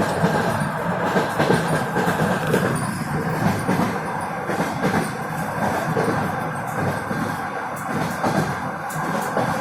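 Train wheels clattering over rail joints under the steady rumble of a moving passenger carriage, heard from inside the car.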